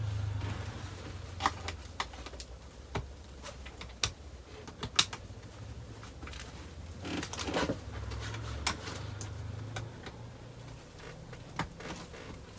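Handling noise as blind-fitting parts are picked out and moved about: scattered light clicks and knocks, with a short rustle about seven seconds in, over a low steady hum.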